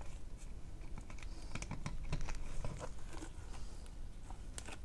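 Scattered light clicks and taps of small plastic parts being handled.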